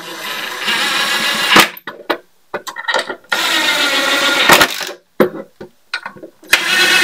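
Cordless drill driving long wood screws through a wooden leg into a pine bed frame: two runs of the motor about a second and a half each, the second starting about three seconds in, and a third starting near the end, with short clicks and knocks of handling between them.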